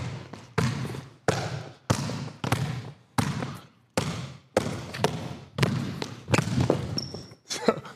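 Basketball being dribbled on a hard gym court, a steady bounce about every half second, each bounce echoing off the walls of the large hall. A brief high squeak comes about seven seconds in.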